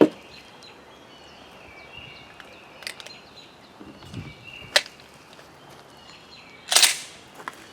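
A few sharp clicks and clacks of a handgun being handled and readied, the loudest a brief clack near the end, with small birds chirping in the background.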